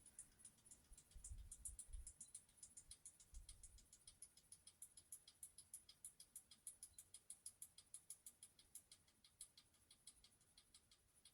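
Hunter ceiling fan running with a faint, regular ticking at about five ticks a second that fades near the end, with a few soft low thumps in the first few seconds.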